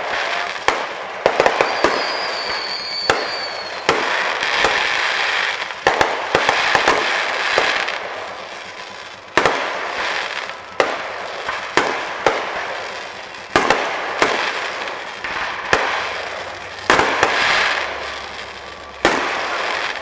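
Aerial fireworks bursting in quick succession: sharp bangs about one to two a second, each dying away with crackling between the bursts. A brief high whistle sounds about two seconds in.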